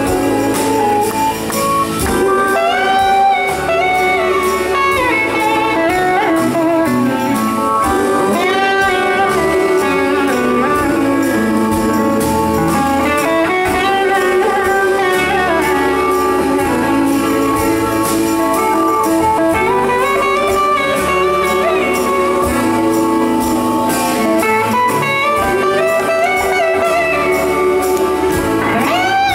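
Live rock band playing, with an electric guitar leading over it in lines that glide up and down in pitch.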